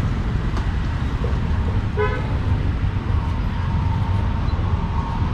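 Steady low traffic rumble on a busy street, with one short vehicle-horn toot about two seconds in.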